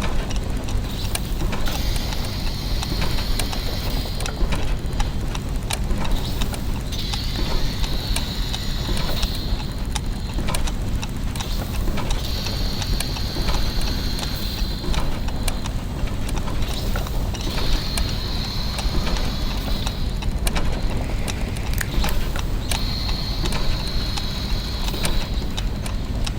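Clockwork machinery: many gears and mechanisms ticking and clicking over a steady low machine hum. A higher hissing whir of about two seconds comes back roughly every five seconds.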